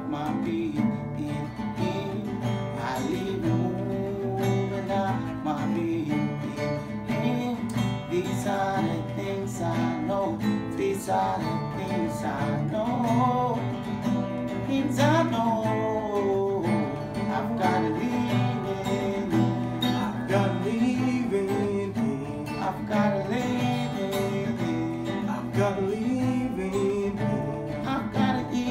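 Acoustic guitar strummed steadily, with a man's voice singing over it.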